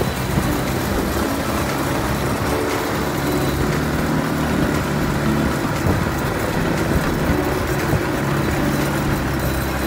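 ATV (quad bike) engine running steadily, with a fairly constant pitch, under the noise of the ride over a dirt track.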